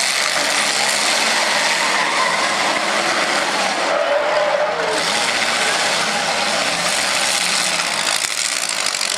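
Several demolition derby cars' engines running hard and revving as the cars manoeuvre and shove each other, in a loud, steady din of engine and tyre noise.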